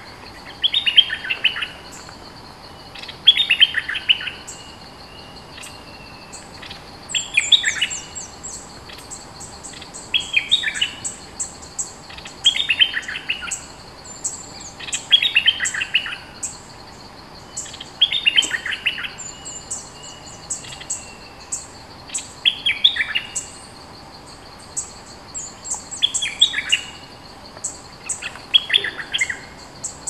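A caged merbah lekir (a bulbul) singing its lure song: short, loud, bubbling phrases of quick falling notes, repeated about every two to three seconds.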